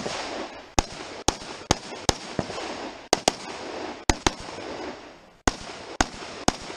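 Rifle shots fired in a practical shooting stage: about a dozen sharp cracks at an irregular pace, some in quick pairs, each ringing out in echo across the range.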